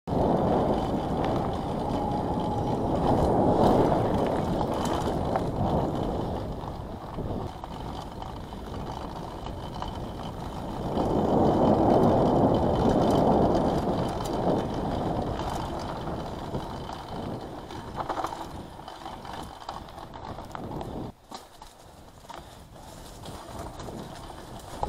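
Mountain bike ridden fast on a dirt trail: tyre rumble and wind rush on the camera's microphone, with rattling and clicking from the bike over the bumps. It swells louder twice and drops away sharply near the end.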